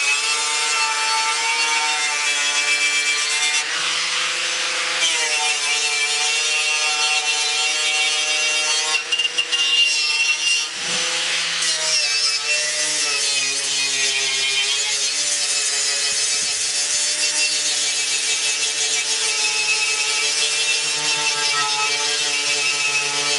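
Electric angle grinder with a wire wheel brush running steadily, its motor whine under the scratch of the wire bristles scouring the painted metal grille of a 1953 Ford F100 truck, stripping it to check for rust before primer. About halfway through the sound turns briefly unsteady, then settles again.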